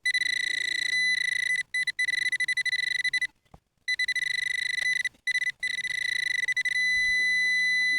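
Metal-detecting pinpointer probe beeping: a high, rapidly pulsing tone that cuts in and out several times as it is moved through the soil, then goes to a steady unbroken tone near the end when it is right on the metal target.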